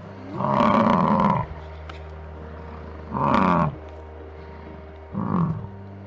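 Highland cow mooing three times, the first call the longest and the later ones shorter, over a steady low hum.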